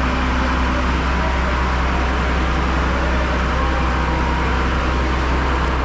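Engine running steadily at constant speed: a continuous low hum under a broad, even rushing noise.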